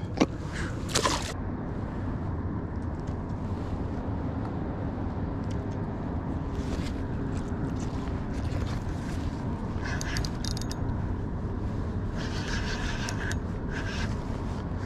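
Steady wind and water noise around a kayak, with a few short spells of a spinning reel being cranked while a hooked fish bends the rod.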